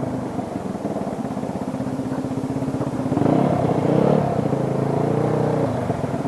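Motorcycle engine running under way, a steady, fast, even pulse picked up by a helmet or action-camera mic. From about three seconds in, a louder engine tone swells for a couple of seconds, then settles back.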